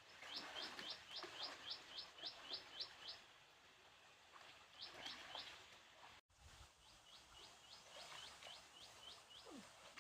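A small bird calling faint runs of quick, high, rising chirps, about four a second: a long run, a short run of three, then another long run.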